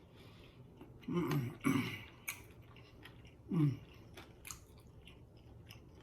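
A person eating close to the microphone: chewing with wet mouth clicks and smacks, and three brief vocal sounds about a second, two seconds and three and a half seconds in.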